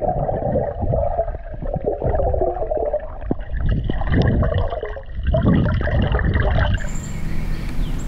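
Muffled gurgling and bubbling of a snorkeler breathing through a snorkel, heard under water through a mask-mounted action camera. Near the end the muffling lifts.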